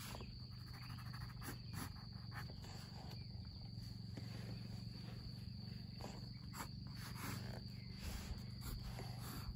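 Graphite pencil drawing lines on drawing paper: short, irregular scratchy strokes, over a steady high-pitched whine and a low hum.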